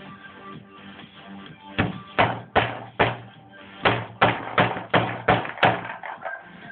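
Background music with a run of about a dozen sharp bangs, roughly three a second, starting about two seconds in and stopping near the end.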